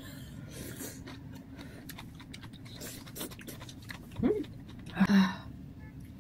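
Quiet eating sounds: chewing, with light clicks of utensils. A short murmured vocal sound comes about four seconds in and another about a second later.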